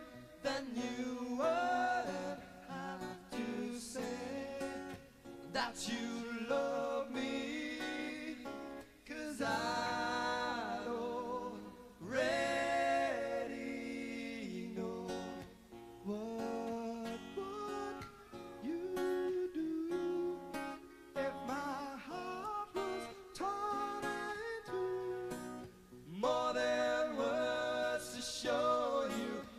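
A man singing a soft ballad live over an acoustic guitar.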